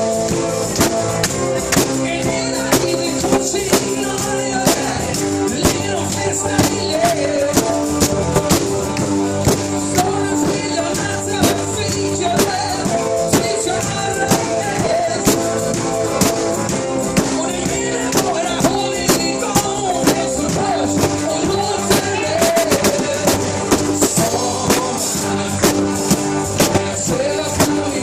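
Live band playing unplugged: singing over guitar and a steady drum beat.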